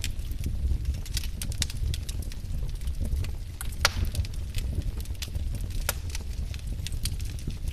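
Wood fire burning with irregular crackles and pops over a steady low rumble of the flames, one sharper pop about four seconds in.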